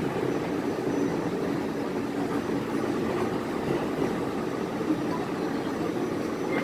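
Steady running rumble heard inside a moving New York City Subway car, an R46, riding the rails.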